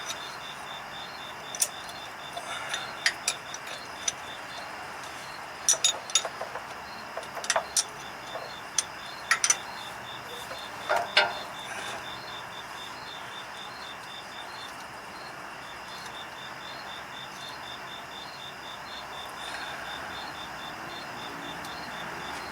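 Sharp metal clinks of wrenches and bolts being handled, several in the first half, over a steady, rapid chirping of insects.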